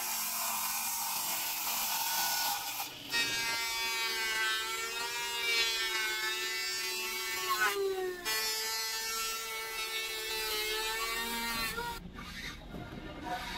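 A hiss, then a power tool's steady whine that wavers and dips in pitch, stopping near the end, followed by faint scraping.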